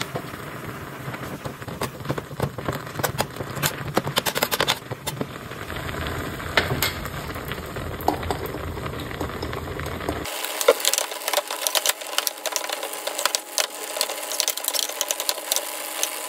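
Broth bubbling at the boil in a thin aluminium pot on a gas burner, with a steady crackle of bubbles. Over it come quick clicks and taps of a metal spoon against the pot as egg is stirred in, thickest near the end.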